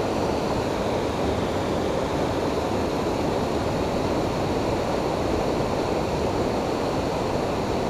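Fast, muddy creek water rushing past the bank in a steady, even wash.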